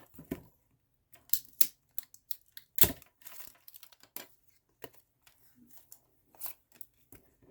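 Plastic wrapping crinkling and tearing off a new deck of cards: irregular crackles and clicks, with one sharper snap about three seconds in.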